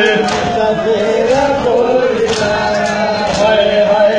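Men chanting a Muharram lament (noha) in a drawn-out melodic line. Sharp slaps of hands on bare chests (matam) come at intervals of about a second.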